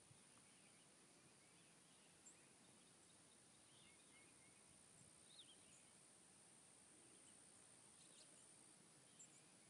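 Near silence: faint outdoor ambience with a few scattered, faint bird chirps and a steady thin high hiss.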